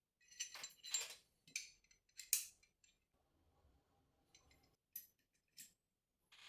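Metal parts of a Mossberg MMR Pro AR-15 rifle clicking and scraping as they are handled during cleaning: a quick cluster of clinks in the first two and a half seconds, then a few single sharp ticks near the end.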